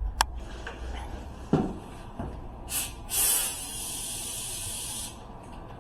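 A sharp click and a knock, then a short puff of hiss and a steady hiss of escaping pressurised gas lasting about two seconds that cuts off abruptly.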